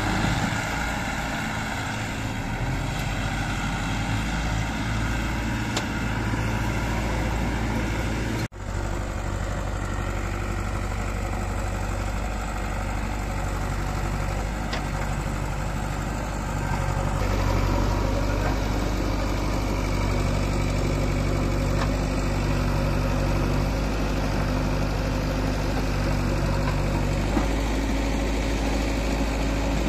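Diesel engines of a JCB 3DX backhoe loader and a Massey Ferguson 241 tractor running steadily near idle while the loader works. The sound drops out for a moment about eight seconds in.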